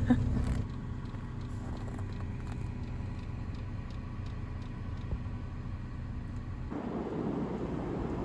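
Vevor diesel heater running with a steady low hum and faint ticking. About seven seconds in, the hum gives way to a steady rushing noise of the truck driving.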